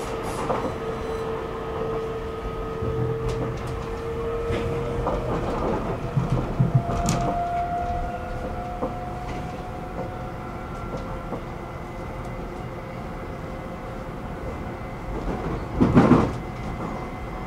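Stockholm metro train running between stations, heard from inside the car: steady rumble of wheels on rail, with a motor whine that fades out about five seconds in and a higher whine rising from about seven seconds in. Scattered knocks, and a loud clatter of the wheels about sixteen seconds in.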